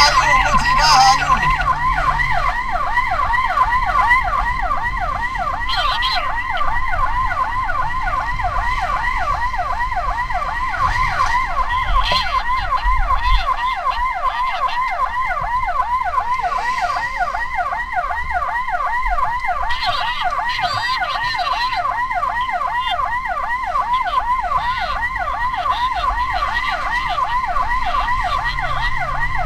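Ambulance siren sounding continuously in a fast yelp, its pitch rising and falling several times a second, over the low rumble of the moving vehicle.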